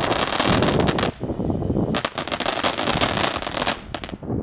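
TNT Galactic Revolt fireworks fountain spraying sparks with dense crackling. The crackling breaks off about a second in, starts again a second later, and dies away near the end with a few last cracks as the fountain burns out.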